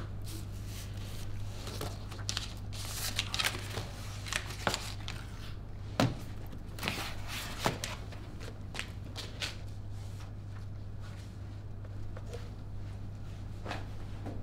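Books, papers and a laptop being gathered up and handled on a table: page rustles and a run of light knocks and taps, the loudest knock about six seconds in, over a steady low hum.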